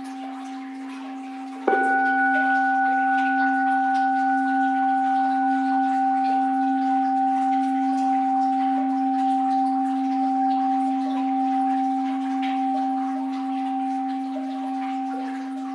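An orin, a Japanese Buddhist bowl bell, is struck once about two seconds in. It rings on with a long, slowly fading tone of a few clear pitches. The ring of an earlier strike is still sounding before it.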